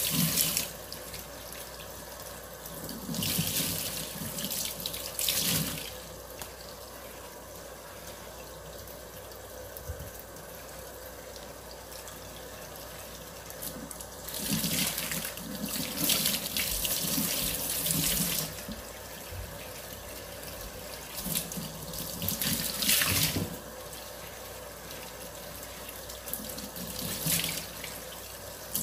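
Water from a tap splashing into a sink while dishes are washed. It comes in spells of a few seconds, with quieter stretches between.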